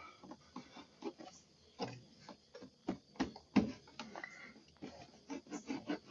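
Irregular clicks and knocks of a car door panel being worked loose by hand, its plastic trim clips and panel snapping and tapping, the loudest a sharp knock a little past the middle.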